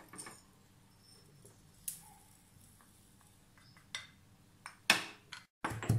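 A few short sharp clicks and knocks of a small metal pan and wooden spatula as dry-roasted whole spices are tipped from the pan into a stone mortar; the loudest knock comes about five seconds in.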